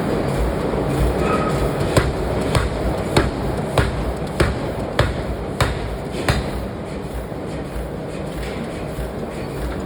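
Hammer striking metal being forged, about eight evenly paced blows roughly every 0.6 seconds, over a steady workshop rumble. The blows stop a little past the middle, and the rumble carries on.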